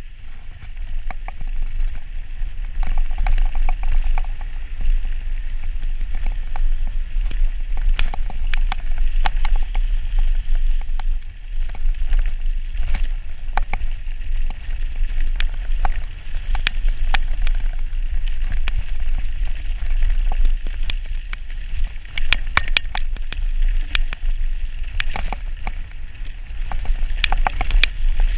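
Mountain bike descending a dirt trail at speed: a steady rumble of wind on the microphone and tyres on the dirt, with frequent rattles and clicks from the bike over bumps.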